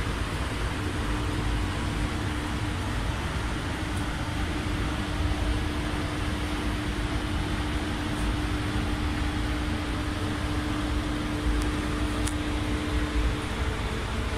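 Paint spray booth ventilation running: a steady rush of air with a steady hum that fades near the end.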